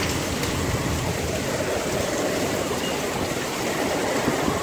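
Heavy rain pouring down steadily in a storm downpour.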